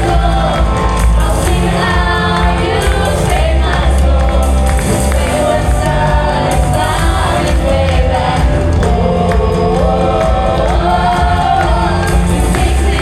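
Gospel praise music played by a live band with singers, the voices sustaining sung lines over steady bass and drums.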